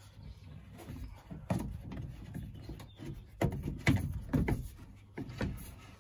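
Irregular knocks and clunks, about five of them, the loudest close together around four seconds in, from plumbing work: pipe and tools being handled.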